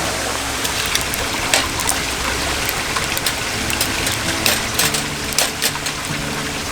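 Mountain valley stream running over rocks: a steady rush of water with frequent small splashes and drips.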